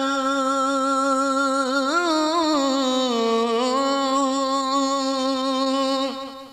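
A male qari's solo voice holding one long sung note in unaccompanied Arabic qasida recitation, the drawn-out end of a verse line. There is a brief ornamental turn about two seconds in and a small step down in pitch a second later, and the note fades out near the end.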